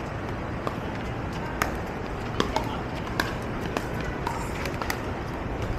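Pickleball rally: sharp pops of paddles striking the plastic ball and the ball bouncing on pavement, about one every half second to a second, over steady outdoor background noise.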